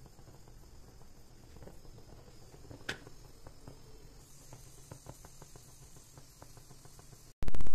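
Faint scattered clicks and light taps from handling rolled paratha dough on a stone counter and a cast iron tawa, with one sharper tick about three seconds in. Near the end a sudden loud sound cuts in and begins to fade.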